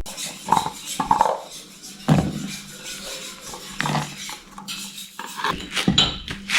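Kitchen work: irregular knocks and clinks of utensils and dishes, a few with a short ring.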